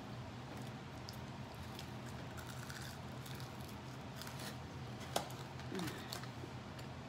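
Eating sounds: a fried chicken wing being bitten and chewed, with small wet mouth clicks and crackles and one sharp click a little past halfway. A faint steady hum runs underneath.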